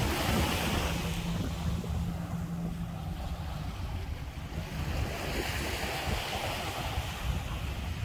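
Small waves breaking and washing up a sandy shore, swelling near the start and again about five seconds in, with wind rumbling on the microphone.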